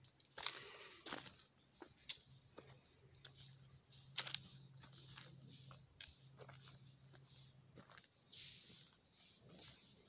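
Insects buzzing steadily in a high-pitched chorus, with a person's footsteps on a dirt track and a few scattered knocks, the sharpest about half a second in and around four seconds in.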